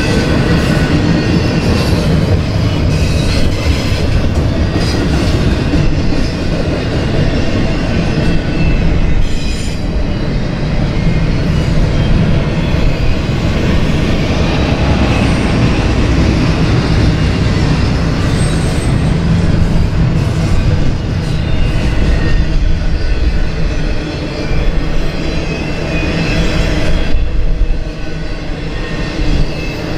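BNSF intermodal freight train's double-stack container cars and trailer-on-flatcar cars rolling past at speed: a steady loud rumble of steel wheels on rail with clacking throughout and a few faint high squeals.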